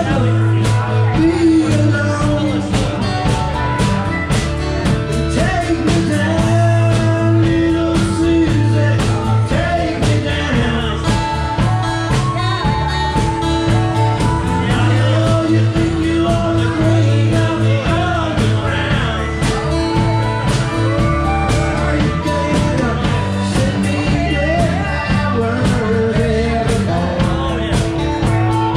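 Live band playing a country-rock song: strummed acoustic guitar, a second guitar and drums, with harmonica played over the top.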